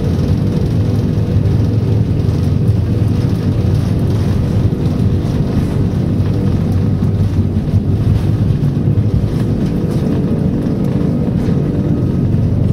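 Steady, loud rumble and hum of an Airbus A340-500's four Rolls-Royce Trent 500 engines, heard from inside the cabin as the airliner taxis.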